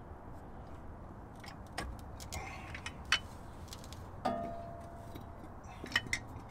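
Metal hand tools and brake parts clinking and tapping during a rear disc brake conversion, in a few sharp clicks. One short ringing metallic clink comes a little after four seconds in, and a quick pair of clicks comes near the end.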